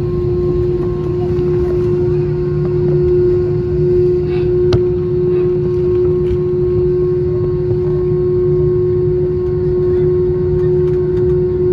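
Cabin of an Airbus A320 taxiing after landing: the jet engines at idle and the cabin air give a steady hum, one clear tone over a low rumble, with a single sharp click about five seconds in.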